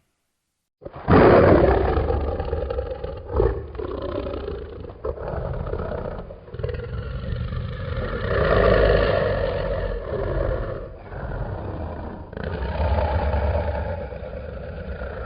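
Fan-made monster roar sound effect for the Gryphon creature. After about a second of silence a loud roar starts abruptly and carries on as one long sound with a deep low end, swelling louder around the middle and again near the end.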